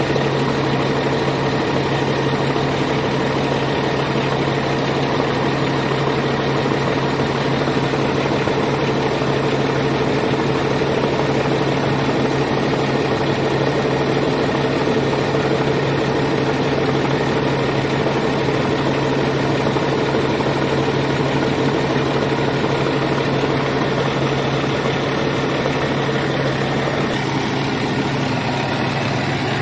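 Renault Premium DCi six-cylinder truck diesel engine running steadily at idle, heard from the open engine bay.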